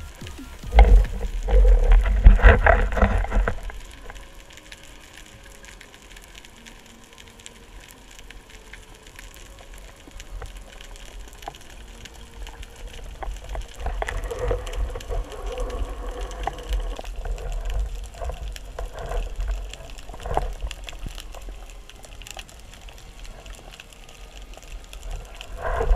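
Underwater sound through an action camera's waterproof housing on a freediving spearfisher. There is loud muffled thumping and rustling in the first few seconds as the diver moves and handles the speargun and the speared octopus, then quieter underwater hiss, with another stretch of rustling midway through the ascent.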